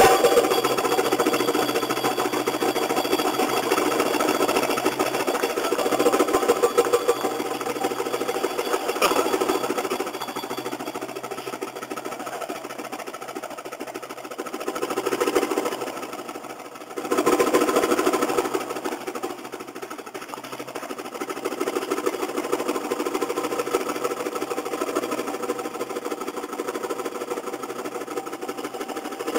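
Belly-dance accompaniment carried by fast, continuous percussion rolls, a rapid rattling beat. It dips away briefly about seventeen seconds in and comes straight back loud.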